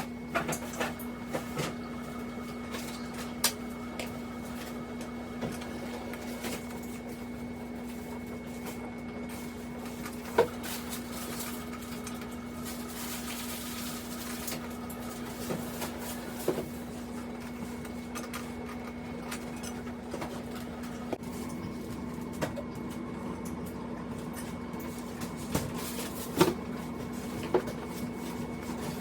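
Scattered light clicks and taps of a screwdriver and metal mounting hardware as a CPU tower cooler is screwed down, with sharper clicks about ten seconds in and near the end, over a steady low hum.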